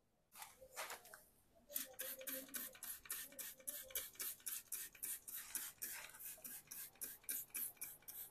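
Brush scrubbing a surface in quick back-and-forth strokes, about four a second, each a short scratchy hiss, after two slower strokes in the first second.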